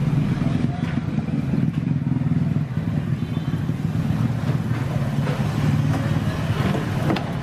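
Steady low engine hum of motor traffic, with a light clink near the end.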